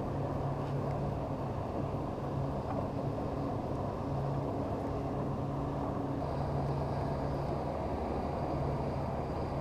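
Steady low motor hum, with a faint high whine joining about six seconds in.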